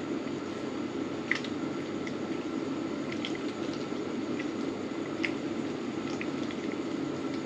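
Water simmering in an electric frying pan under a steaming whole fish, a steady bubbling with a few small pops and drips as soy sauce is poured over the fish.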